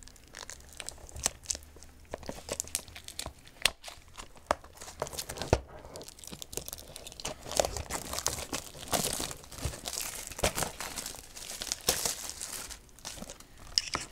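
Plastic shrink wrap being torn and peeled off a Blu-ray case: continuous crinkling and crackling with sharp ticks, growing busier about halfway through.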